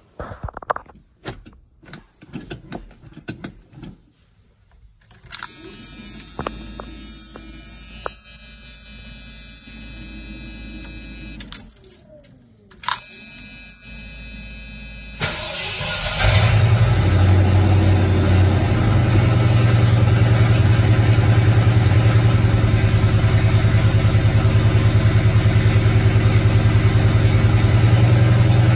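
Keys and clicks for a few seconds, then a steady hum with the key on. Halfway through, the 1986 Ford F-150's 351 Windsor V8 cranks briefly and fires on a cold start after sitting a week below freezing. It then idles loudly through its straight-piped exhaust with a rapid, even pulse.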